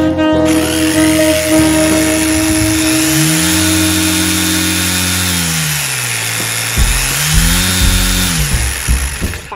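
Metabo KHE 5-40 SDS-max rotary hammer running, its motor speeding up and winding down twice.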